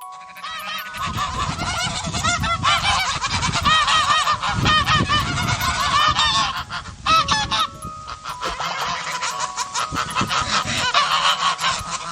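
A flock of geese honking, many calls overlapping one another, with a short lull about seven seconds in.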